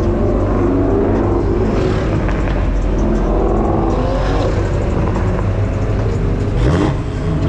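Car engines running steadily with a deep rumble, and one engine revving up sharply near the end.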